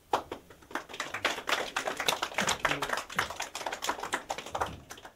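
A small audience clapping, many separate irregular claps starting suddenly just after the speaker's thank-you.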